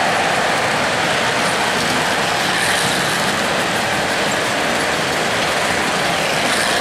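O-gauge three-rail model trains running on the layout's track: a steady, even noise of wheels and motors with a faint steady hum.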